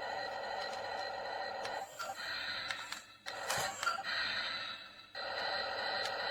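Small electric gear motors of a toy RC wheel loader running with a steady whine. The sound cuts out briefly about three seconds in and again about five seconds in.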